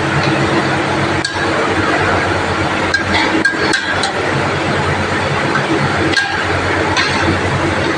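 Several sharp metal clinks of a cooking utensil against cookware, four of them bunched together in the middle, over a steady hiss and low hum.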